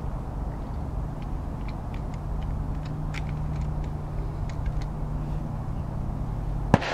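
A single shotgun shot near the end, sharp with a brief echoing tail, over a steady low hum. A few light clicks come before it.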